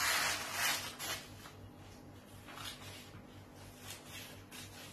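A large sheet of paper pattern rustling and rubbing under a hand, loudest in the first second, then fainter rustles.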